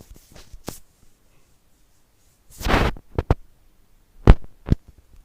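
Several sharp clicks, the loudest about four seconds in, and a brief rustling scrape near the middle.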